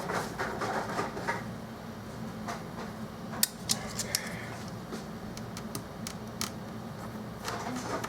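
Scattered sharp, light clicks and taps of small tools and parts being handled on a workbench, over a steady low hum.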